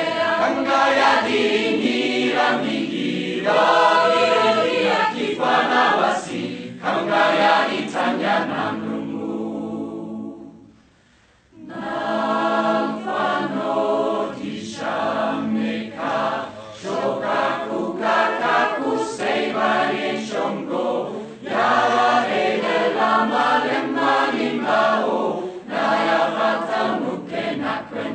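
A choir singing a Catholic song in the Taita language, phrase after phrase. Around ten seconds in the singing fades out for about a second, then the choir comes back in with a new phrase.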